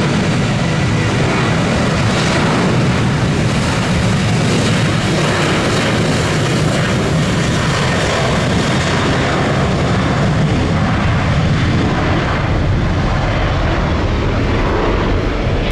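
Boeing 737-800's CFM56-7B turbofan engines at takeoff thrust during the takeoff roll: a loud, steady jet noise.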